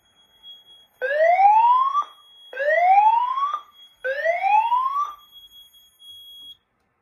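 Notifier voice-evacuation speaker sounding the emergency whoop: three rising sweeps about a second long each, then stopping, with a thin steady high-pitched tone underneath. The whoop gives way because the pulled fire alarm station takes priority over the emergency tone.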